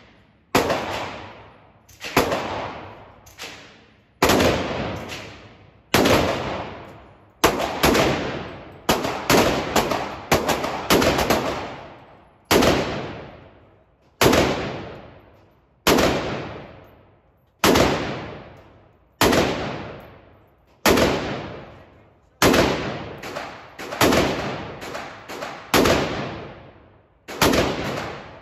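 Gunshots fired one at a time at an uneven pace, mostly one to two seconds apart, with quicker runs of shots about a third of the way in and again near the end. Each shot rings out with a long fading echo.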